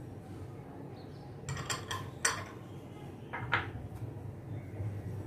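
Glass bowls and a spoon being handled on a tiled counter: a few light clinks and taps, in a short cluster about one and a half to two seconds in and again about three and a half seconds in.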